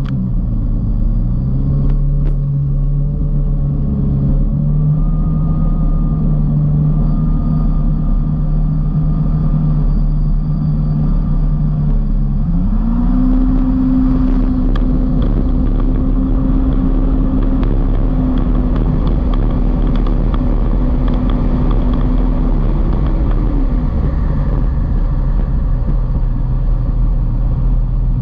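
Kawasaki Ultra 310 LX jet ski's supercharged four-cylinder engine running at speed over a steady rush of water spray and wind. About twelve seconds in the revs rise and hold higher for about ten seconds, then drop back.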